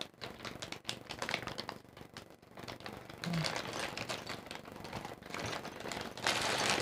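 Clear plastic packaging bag crinkling while small plastic action-camera mounts are handled and click against each other, in a run of quick light ticks. The crinkling grows louder near the end.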